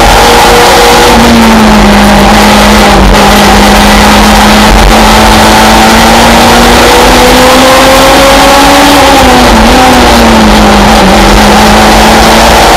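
Race car engine heard from inside the cockpit, running hard at high revs and very loud. Its pitch holds fairly steady, dips briefly twice about three-quarters through, then rises again near the end.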